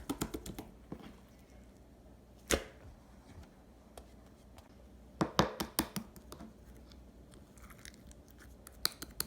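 Clear pearl slime being squished and stretched by hand, giving clusters of sharp clicks and pops: one group at the start, a single loud pop after about two and a half seconds, a dense run around five to six seconds, and a few more near the end.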